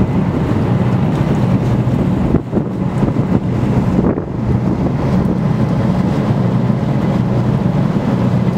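A boat's engine running steadily underway, a constant low drone, with wind buffeting the microphone.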